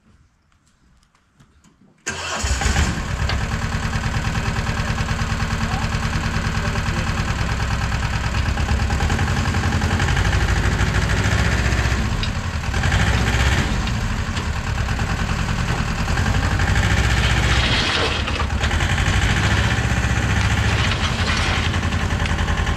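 An engine starts suddenly about two seconds in and runs loudly and steadily with a fast low pulse, its pitch shifting a little now and then.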